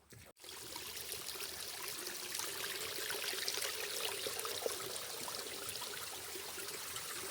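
Spring water trickling out of the rock: a steady rush of running water with small splashes and drips, starting abruptly a moment in.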